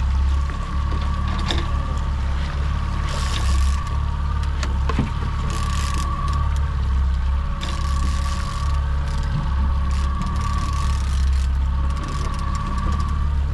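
Boat engine running steadily, with a deep rumble and a thin constant whine. Several brief hissing rushes come over it.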